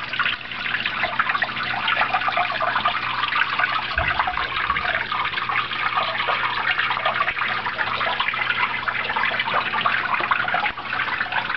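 Water from the enclosure's artificial waterfalls trickling and splashing steadily into its pools.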